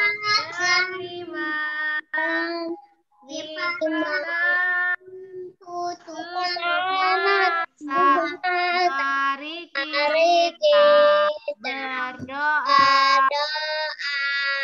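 A young child singing a song in short phrases, with a woman's voice singing along, heard over a video call.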